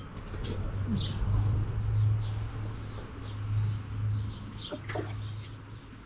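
Small wild birds giving short, high chirps now and then over a steady low hum.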